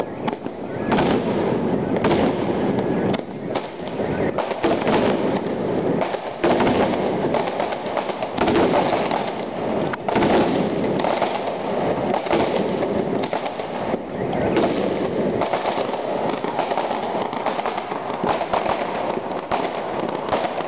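Fireworks and firecrackers going off without a break, a dense crackle of many sharp bangs overlapping one another.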